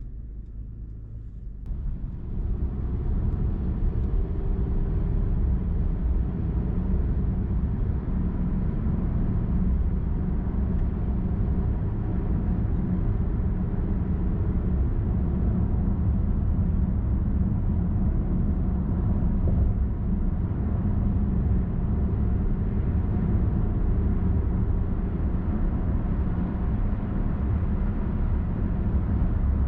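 Car driving along a highway: steady tyre and engine noise, mostly low rumble. It jumps louder about two seconds in, then holds steady.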